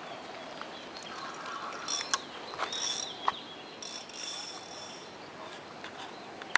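Fishing reel being cranked against a hooked fish, its gears ticking and whirring, with two sharp clicks about two and three seconds in.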